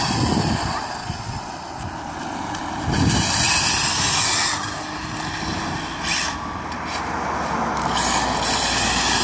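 Roadside vehicle noise: a steady tyre-and-engine rush of road traffic, mixed with wind on the phone's microphone, swelling louder about three seconds in and again near the end.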